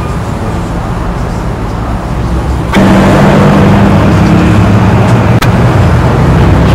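A steady machine hum that suddenly grows louder and takes on a stronger, higher drone almost three seconds in, with a click at that moment and another sharp click a few seconds later.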